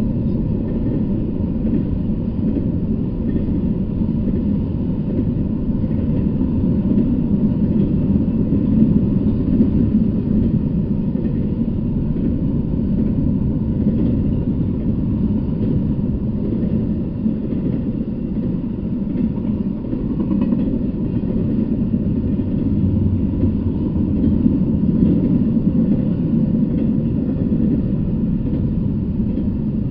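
Double-stack intermodal freight train rolling past close by: a steady, unbroken rumble of the passing well cars.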